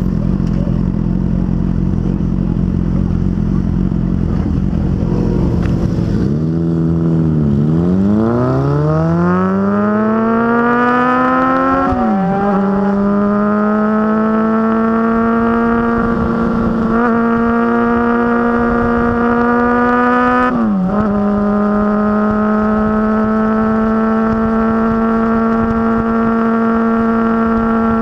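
Motorcycle engine on the move: the engine note sinks about six seconds in, then climbs steeply as the bike accelerates, with two upshifts about twelve and twenty-one seconds in, each a short drop in the note, before settling into a steady cruise.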